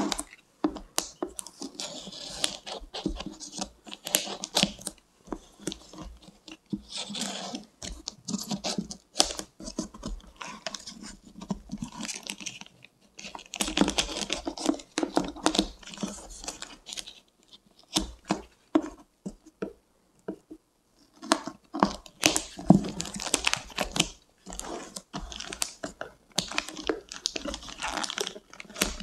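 Plastic poly mailer being cut open with a knife and handled: crinkling film, with the blade slicing and scraping along the plastic in irregular bursts. There is a quieter stretch a little past the middle.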